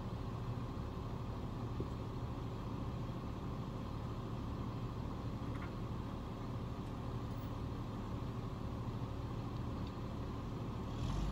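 Grove RT60 rough-terrain crane's diesel engine idling with a steady low hum, swelling in the low end just before the end.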